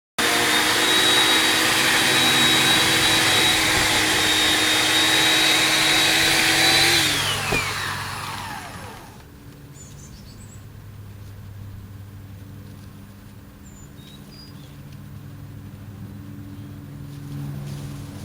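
A motor-driven machine runs loud and steady, then is switched off about seven seconds in and winds down, its pitch falling over a second or two. A quieter low hum carries on afterward.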